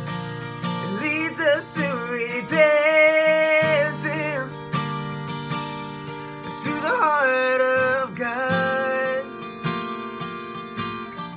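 A man singing with an acoustic guitar strummed in a steady rhythm, his voice holding long notes over the chords.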